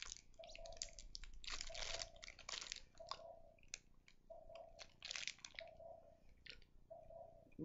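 Snack-bar wrapper crinkling as it is opened, with bites and chewing, in a few bursts. Under it, a soft regular pulse a little more than once a second: a baby swing's heartbeat sound.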